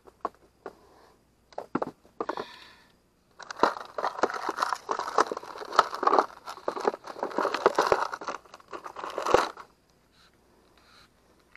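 Plastic bags and packets crinkling and rustling as hands rummage through a scooter's under-seat storage compartment. A few scattered knocks come first, then about six seconds of steady crinkling that stops near the end.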